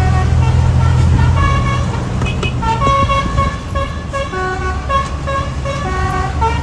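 Truck's musical horn playing a quick tune of short notes at changing pitches, over a heavy engine's low running that eases off about two seconds in.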